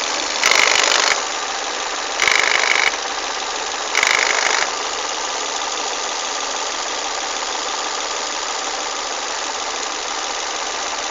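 Volvo S40 1.8-litre, 122 hp engine running with a steady mechanical noise. Three short, louder, harsher bursts come in the first five seconds, under a second each. The noise comes from a broken VVT (variable valve timing) wheel.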